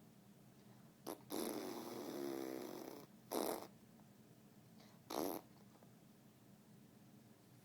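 Funny raspy noises made in the nose and throat: a short click about a second in, one long rasp with a low rattle in it, then two short bursts.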